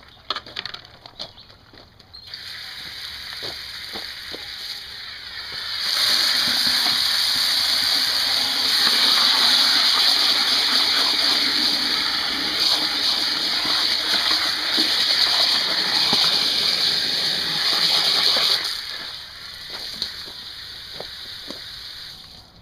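Fresh water from a garden hose splashing into a plastic bucket of live crayfish, refilling it for a rinse during purging. The rush starts about two seconds in, grows much louder about six seconds in, and drops back near the end.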